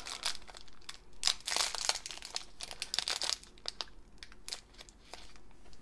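Foil blind-bag wrapper crinkling and tearing as it is opened by hand, a run of irregular crackles.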